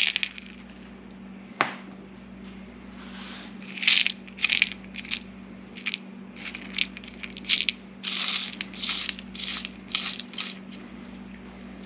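Number 2 lead shot pellets being dumped out of a cut-open 3-inch shotgun shell, giving scattered sharp clicks and short clusters of clicks as they drop and settle.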